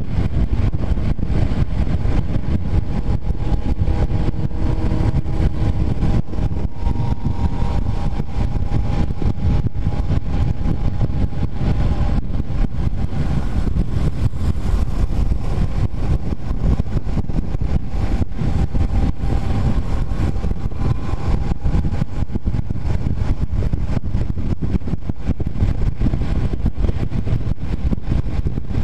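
Honda CBR250R single-cylinder engine running at a steady cruise on an open road, heard from the handlebars under heavy wind rush on the microphone. A faint engine hum comes and goes in pitch.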